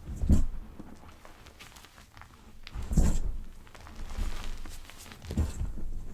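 Pebbles of gym chalk crushed by hand, soft crunching and crackling in several separate presses, the strongest near the start and about three seconds in.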